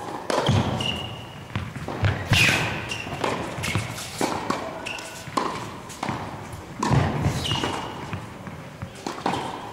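Tennis balls struck by a racket and bouncing on the court in an irregular run of sharp hits during a rally, with the player's footsteps between them.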